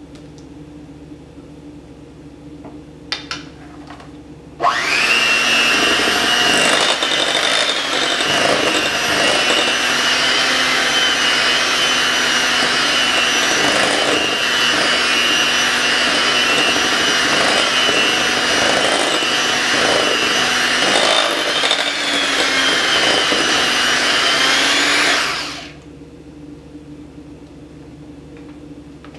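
Electric hand mixer beating cream cheese frosting in a glass bowl: a steady motor whine that starts about five seconds in, runs for about twenty seconds and then switches off. A couple of light clicks come just before it starts.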